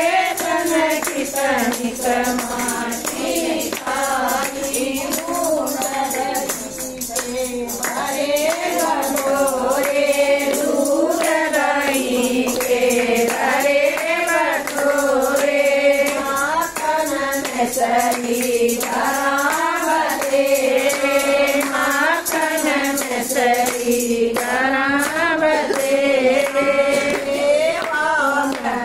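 A group of women singing a Haryanvi Krishna bhajan together in unison, with a steady beat of hand clapping and jingling hand percussion under the voices.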